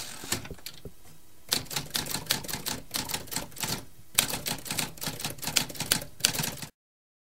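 Typewriter keys clacking in quick, irregular strokes, thinning out briefly about a second in, then cutting off suddenly near the end.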